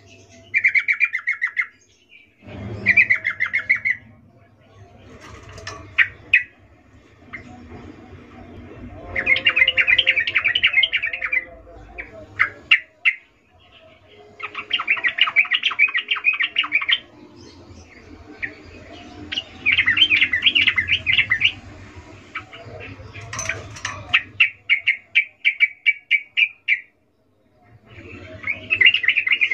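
Yellow-vented bulbul (trucukan) female in breeding condition giving bursts of rapid chattering notes. Each burst lasts one to two and a half seconds, and they repeat every few seconds. One burst, near the end, breaks into a string of separate notes.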